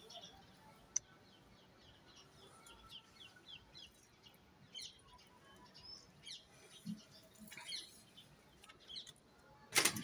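Faint, repeated short high chirps from birds, with a click about a second in and a brief loud rustle near the end.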